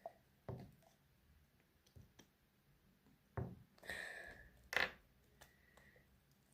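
Soft handling sounds while making slime: a few light clicks and knocks, with a short rustling stretch about four seconds in.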